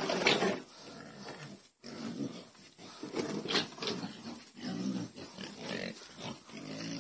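Black village pigs grunting and squealing in a pen, hungry and waiting to be fed. There is a loud squeal right at the start, then short grunts about once a second.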